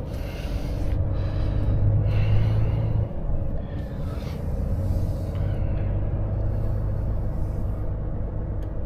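Volvo FH460 truck's 13-litre six-cylinder diesel running at low revs, heard from inside the cab as the truck rolls slowly, a steady low hum with short stretches of faint hiss now and then.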